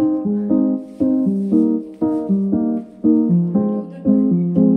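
Background music: a keyboard melody of stepping notes, its phrases restarting about once a second.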